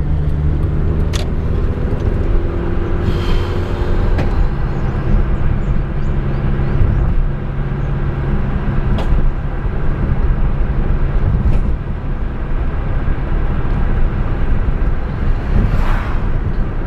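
Car driving, heard from inside the cabin: a steady engine and road rumble, with the engine note easing about halfway through.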